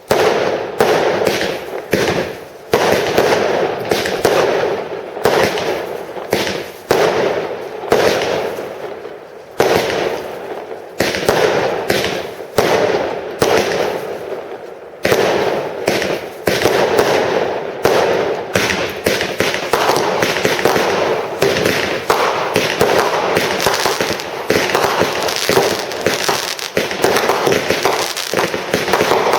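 Consumer firework battery cakes firing a rapid series of shots and bursts, a few a second at first and packing into an almost continuous volley in the second half.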